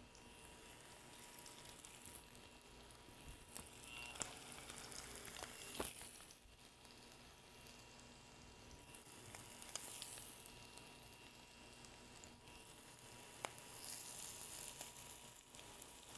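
Tuna cakes sizzling faintly in hot olive oil in a skillet, a fluctuating hiss with a few sharp clicks.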